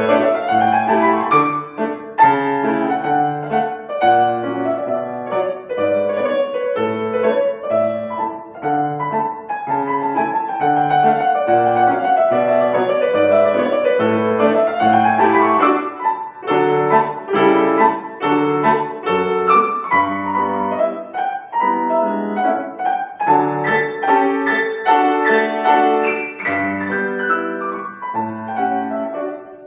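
Acoustic piano playing a classical piece, with fast running passages that sweep up and down the keyboard over a steady left-hand figure; the playing breaks off at the very end.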